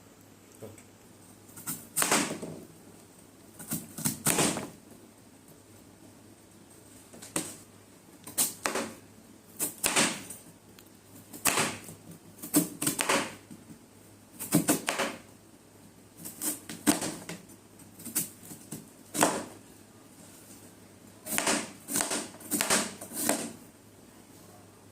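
A knife cutting through firm, crisp guava: short crunchy cuts, one to two seconds apart, some in quick pairs and a rapid run of several near the end.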